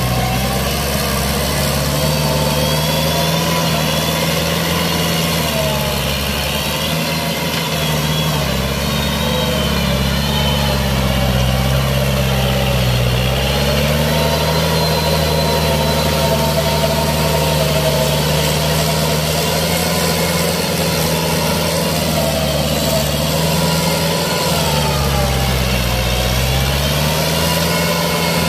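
Kubota L5018 tractor's diesel engine running steadily while pulling a rotary tiller through paddy mud. Its pitch sags briefly a few times as the engine takes the tilling load, then recovers.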